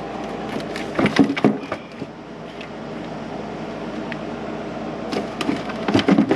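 Two clusters of sharp clicks and cracks, about a second in and again near the end, as plastic parts and fasteners on the battery box are handled and pried, over a steady hum.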